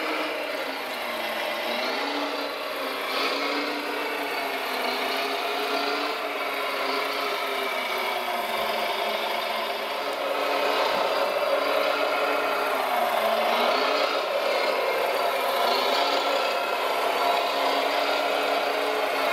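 Scale RC Volvo L250G wheel loader running, its engine sound rising and falling in pitch every few seconds as it drives and works.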